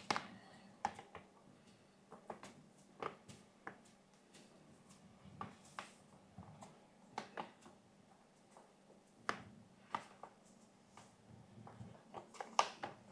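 Faint, irregular crinkling and crackling of a plastic bag of dry malt extract being held and tipped as the powder pours out.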